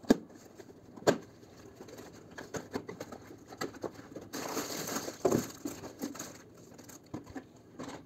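A cardboard product box being opened by hand: two sharp snaps as the end flap is pulled free, at the start and about a second in, then scattered small ticks and a stretch of scraping and rustling as the contents slide out, with plastic wrap crinkling and a knock.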